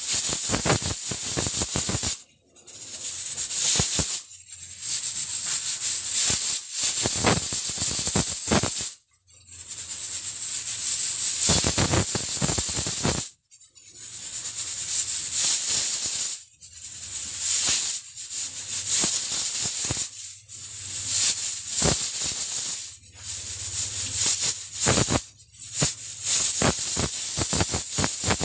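Aluminium pressure cooker at full pressure, its weighted valve jiggling and rattling as steam hisses out, breaking off briefly several times.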